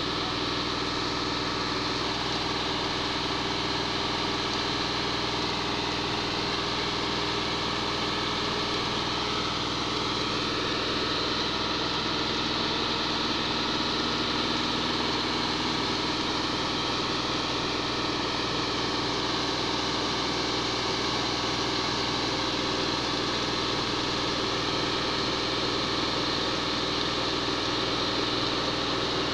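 Concrete mixer truck's diesel engine running steadily, driving the turning drum as it discharges concrete down the chute. The pitch wavers slightly now and then.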